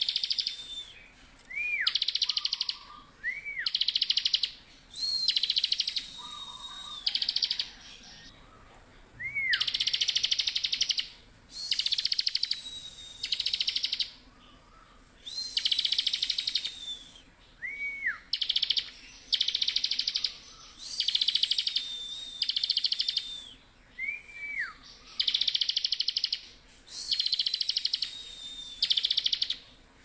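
Bar-winged prinia (ciblek) in full, rapid song: buzzy, very fast trills about a second long, repeated over and over, alternating with a thin, high held whistle and now and then a short whistle that rises and drops.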